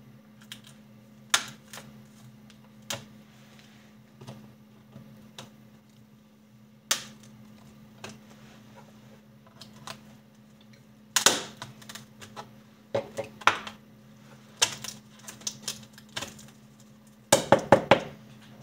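Side-cutting pliers snipping through the acrylic holding tabs of a CNC-milled Plexiglas part: scattered sharp snaps and clicks, with a quick run of several snaps near the end.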